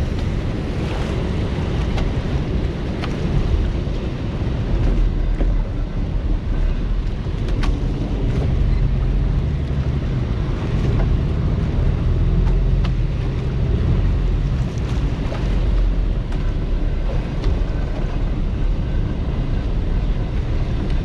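Wind buffeting the microphone over open sea, with the rush and slap of choppy waves around a small boat; a steady, heavy low rumble with a few faint ticks.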